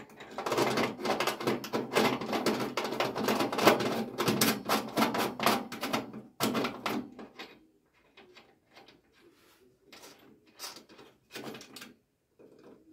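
A hand tool clicking and scraping rapidly against sheet metal for about six seconds, then only a few scattered clicks.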